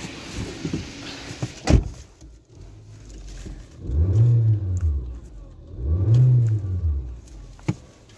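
Nissan Sentra's four-cylinder engine revved twice, each rev rising and falling in pitch, now running without its cylinder 2 misfire. A sharp knock comes about two seconds in and a click near the end.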